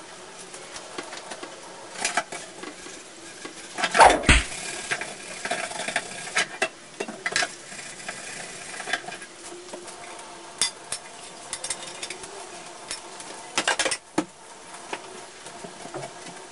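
Dishes and cutlery clinking and clattering while being washed in a kitchen sink, in irregular knocks. Two louder clatters come about 4 seconds in and again near 14 seconds.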